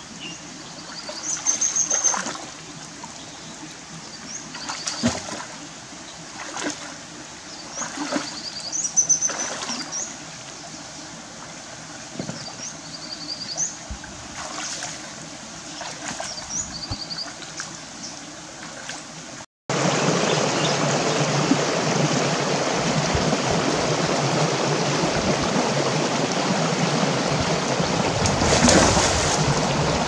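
Hands splashing and groping in a shallow rocky stream, in several separate splashes, with a few short high chirps. About two-thirds through, the sound changes to a louder, steady rush of flowing stream water with wading splashes.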